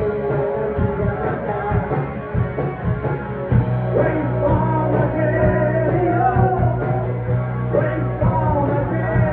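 Live rock band playing: a man sings into a microphone over electric guitar, bass guitar and a drum kit with steady drum beats.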